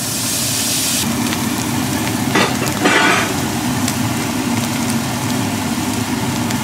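Chopped halloumi cheese sizzling in a hot frying pan: a burst of sizzling as the diced cheese is tipped in, then steady frying with two brief flare-ups about two and a half and three seconds in.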